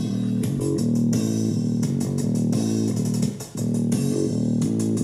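Rock-style background music with guitar and bass, with a short break about three and a half seconds in.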